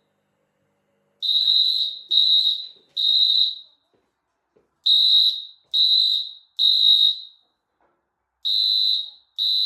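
Fire alarm sounding the temporal-three evacuation pattern: groups of three high-pitched steady beeps, each under a second long, separated by pauses of about a second. The beeps start about a second in, and the pattern repeats roughly every three and a half seconds.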